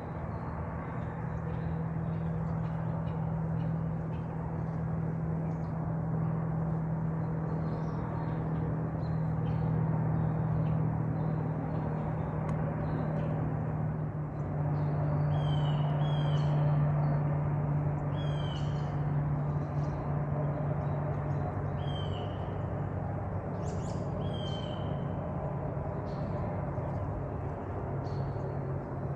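Steady low drone of a distant engine, its pitch shifting about halfway through, under woodland quiet. A bird gives short down-slurred chirps, several times in the second half.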